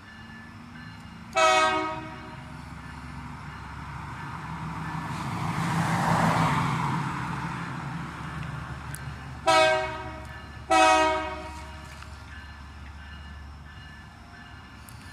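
New York & Atlantic Railway locomotive's air horn: one short blast about a second in, then two more short blasts about a second apart near ten seconds in. Between the blasts the train's rumble rises and falls.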